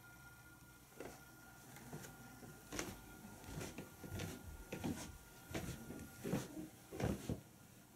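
Footsteps going down carpeted stairs: about ten dull thuds, uneven in spacing, heaviest near the end.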